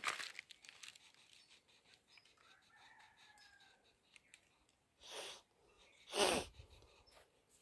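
Faint scratching of an oil pastel on paper, with a rooster crowing in the distance a few seconds in. Two short louder rustles come near the end, the second the loudest sound here.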